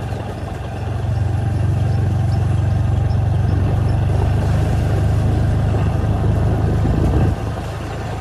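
Motor scooter running while ridden slowly along a wet road, picking up a little speed. A steady low engine hum is mixed with rushing air noise. The sound drops slightly about seven seconds in.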